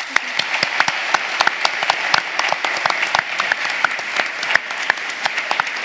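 Audience applause: many hands clapping together in a dense, steady patter.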